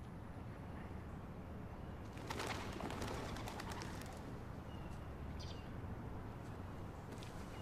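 Outdoor ambience with birds: a steady low rumble, a brief flurry of rustling about two seconds in, and a few short high chirps near the middle.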